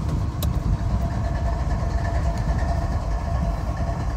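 Parked diesel-electric freight locomotives idling with a steady low rumble and a faint steady hum over it. A single sharp click comes about half a second in.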